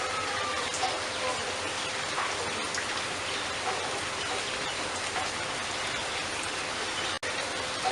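Steady rain falling, an even hiss with scattered drip-like ticks; the sound cuts out for an instant about seven seconds in.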